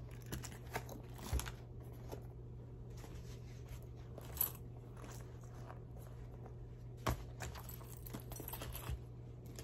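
Small leather and fabric pouches being handled and set down: soft rustling with a few sharper clicks and knocks, over a low steady hum.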